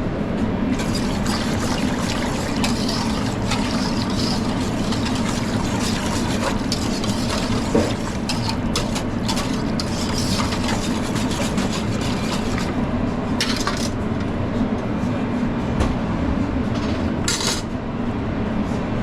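Liquid being poured and stirred in a pot while a bulgogi-paste stock is mixed, with short clinks of utensil on metal here and there. A steady kitchen hum runs underneath.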